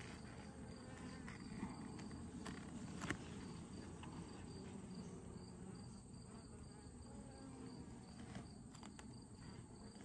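Buckfast honeybees humming and buzzing in and around an open Layens hive, with a few light clicks and knocks as frames are handled. A faint, high pulsing trill runs underneath.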